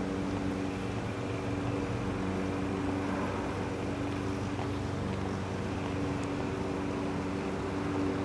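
A steady engine drone holding one pitch throughout.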